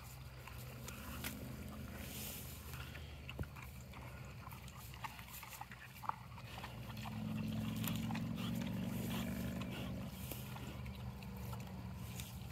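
A pig eating feed off the ground, chewing and crunching in scattered short clicks. A steady low hum runs underneath and grows louder from about seven seconds in.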